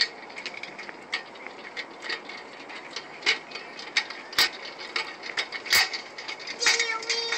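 Child's tricycle rattling and clicking irregularly as it rolls over a concrete sidewalk, a few clicks a second.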